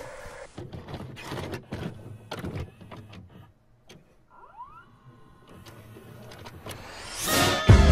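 A VCR loading and playing a VHS tape: a short hiss of static, then a run of mechanical clicks and clunks, then a faint whirring. Music comes in near the end.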